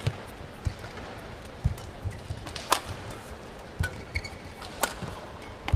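Badminton rally: rackets strike the shuttlecock with sharp cracks about once a second, with the players' feet thudding on the court between shots.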